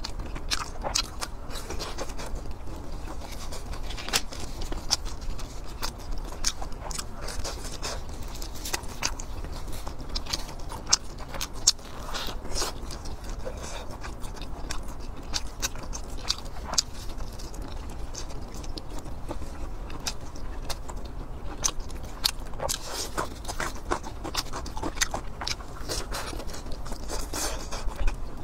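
Close-miked eating sounds: chewing and biting soft glazed meat and a fried meat-filled bun, with many sharp wet mouth clicks and smacks, several a second.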